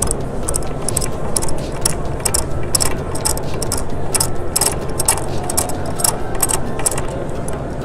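Metal sliding-door hardware clicking and rattling in many short, irregular clicks as the front suspension carriage of a Hawa Junior 80B pocket door is handled and fitted onto the door.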